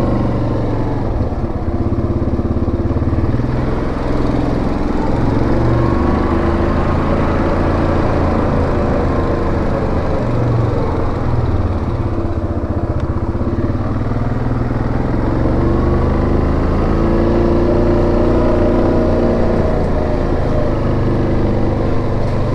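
A 2017 Yamaha Grizzly 700 ATV's single-cylinder engine running steadily under way. Its pitch rises and falls gently with the throttle as it rides along a gravel trail.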